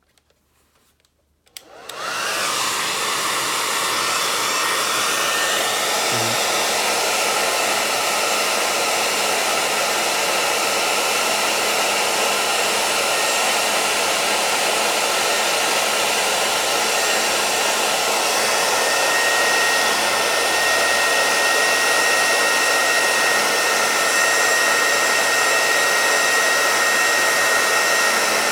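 Hair dryer switched on about a second and a half in, spinning up with a brief rising whine, then running steadily with a constant whine over its rush of air, heating heat-shrink tubing.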